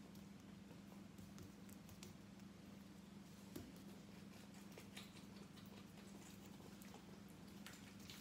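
Near silence: a steady low hum with a few faint taps and clicks, from a young goat kid's hooves moving on a tiled floor.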